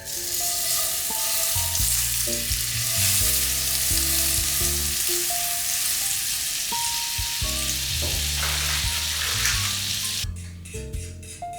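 Food sizzling in a frying pan, a steady crackling hiss that stops suddenly about ten seconds in, over soft background music.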